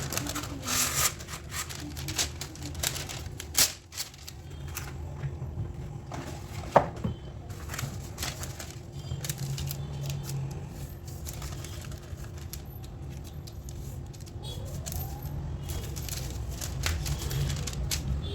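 Dough being cut and portioned on a kitchen counter: scattered clicks, taps and knocks of a knife and handling, with one sharp knock about seven seconds in, over a steady low hum.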